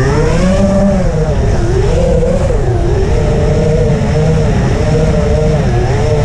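FPV racing quadcopter's motors and propellers whining. The pitch sweeps sharply up at the start, then keeps rising and falling as the throttle is worked through low passes.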